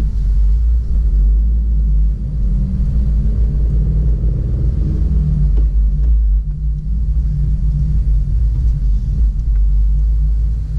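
Steady deep road and engine rumble inside a moving 2017 Subaru WRX, whose engine is a turbocharged 2.0-litre flat-four. Around the middle the engine note rises and falls briefly.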